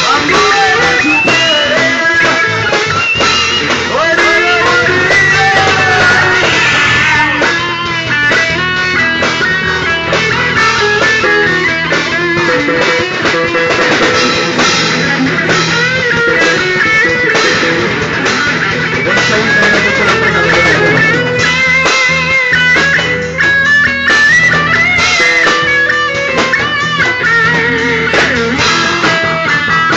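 Rock band playing, with electric guitar over drums and bass; the guitar lines bend in pitch throughout.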